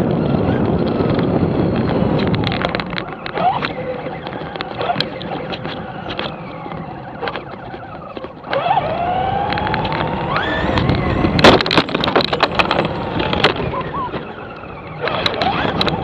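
RC car driving: its motor whining up and down in pitch over a rough rolling noise of the wheels, with many sharp clicks and knocks of the car jolting and bumping.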